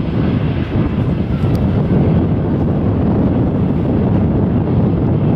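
Strong wind buffeting the microphone in a steady low rumble, over the jet engines of an Airbus A319 rolling onto the runway for takeoff.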